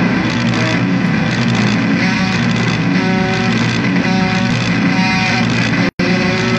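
Loud noise music: a steady, dense wall of noise with short repeated tones coming in from about two seconds in, broken by a brief dropout to silence near the end.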